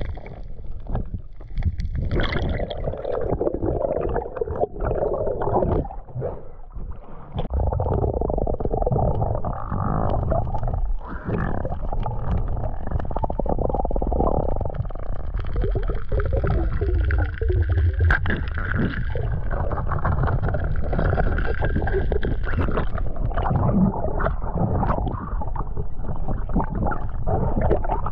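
Muffled underwater sound of a diver swimming: water rushing and gurgling around a submerged camera, with a low rumble and scattered clicks.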